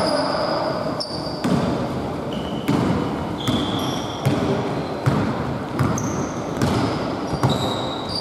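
Basketball being dribbled on a wooden gym floor, a sharp bounce roughly every second, with short high-pitched squeaks of sneakers on the floor.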